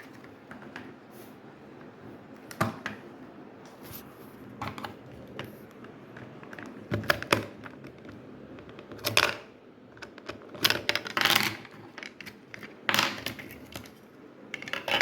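Batteries being taken out of an opened air-conditioner remote and the plastic casing handled: scattered light clicks and metallic clinks, a dozen or so spread unevenly, some in quick pairs.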